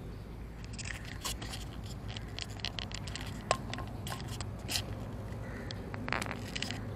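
Close rubbing and scraping of a cat's fur against the camera, with scattered short clicks from handling, one sharper click about halfway through, over a low steady hum.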